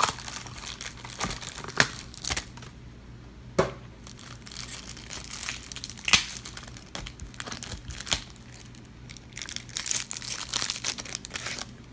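Foil booster-pack wrapper crinkling as it is handled and torn open, with sharp crackles scattered throughout and a denser run near the end.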